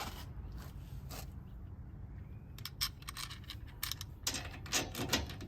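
Light metallic clicks and clinks of a trailer strap's mounting bracket and bolt hardware being handled and fitted, in scattered clusters about three seconds in and again near the end.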